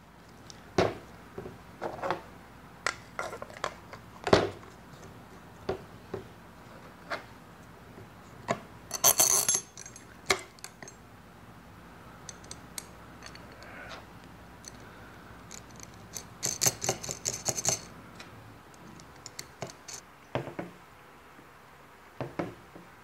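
Metal U-bolts and nuts being handled and fitted with a ball-and-socket mount onto a PVC pipe: scattered clicks and knocks, with two short spells of metallic clinking and jingling, about nine seconds in and again around seventeen seconds in.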